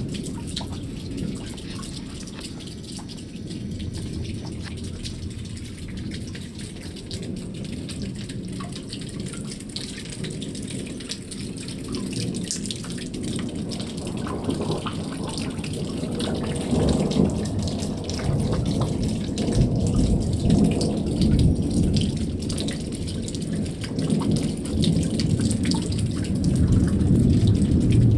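Thunderstorm: steady rain pattering, with low thunder rumbling that grows louder in the second half.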